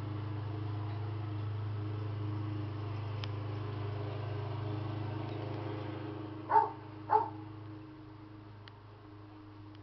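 A steady low hum, then two short barks from a dog about half a second apart, some six and a half seconds in.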